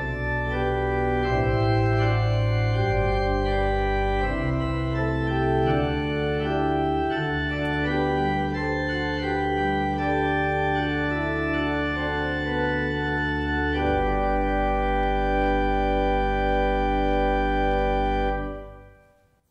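Church organ playing slow sustained chords over a low pedal bass line, closing on a long held final chord that dies away near the end.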